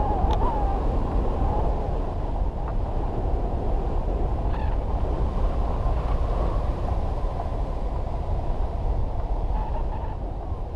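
Steady, muffled rush of wind on a camera mounted on a hang glider in flight, airflow buffeting the microphone.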